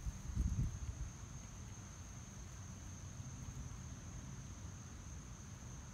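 Steady high-pitched insect chorus of a summer lawn, one unbroken shrill note. A low rumble in the first second fades out.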